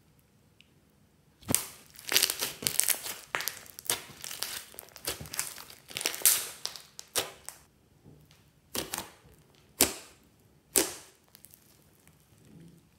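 Fluffy slime with foam beads being squeezed, stretched and folded by hand: starting about a second and a half in, a dense run of wet crackling and squelching from trapped air, then three separate sharp pops about a second apart.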